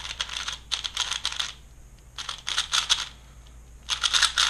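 Valk 3 stickerless 3x3 speedcube being turned quickly in hand, its plastic layers clicking and clacking in several short bursts of rapid turns.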